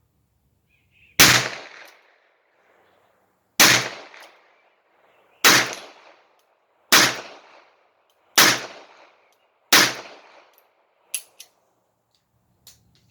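Smith & Wesson Model 17-3 .22 LR revolver fired six times at a slow, steady pace, each shot a sharp crack with a short echo. A couple of light clicks follow the last shot.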